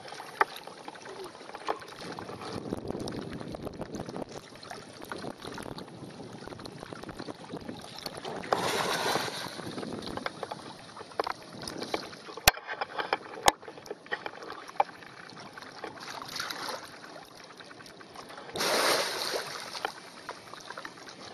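Water sloshing and splashing around an elephant wading through swampy water. There are two louder rushes of noise, about nine seconds in and near the end, and two sharp clicks a second apart in the middle.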